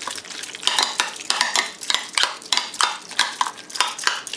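Metal spoons tossing chunky guacamole in a glass bowl, clinking and scraping against the glass in a quick, irregular run of clicks, about three or four a second.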